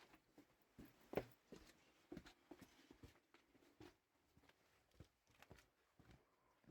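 Near silence, with scattered faint knocks and rustles.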